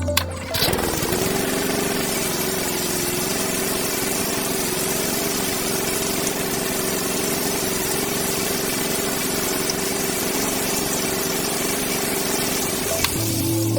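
A small motor running steadily with a loud hiss, starting suddenly about half a second in and cutting off near the end.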